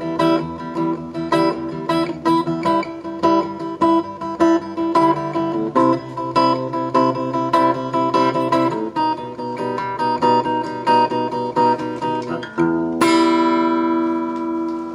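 Guitar played live, picking a steady repeating figure through a few chord changes, then a final chord struck about thirteen seconds in and left to ring out as the song ends.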